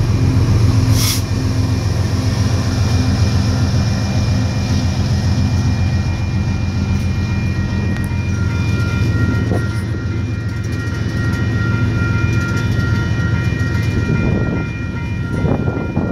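Loaded tank cars of a long freight oil train rolling past at a grade crossing: a steady, loud rumble and clatter of steel wheels on the rails.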